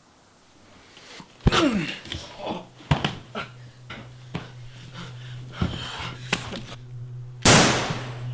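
A scuffle on a sofa: a loud sudden hit that sweeps down in pitch about a second and a half in, then several sharp knocks and thuds with rustling fabric, and a loud rushing swish near the end.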